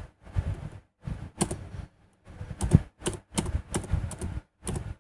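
Computer keyboard typing: irregular runs of quick keystrokes, with a brief pause about two seconds in.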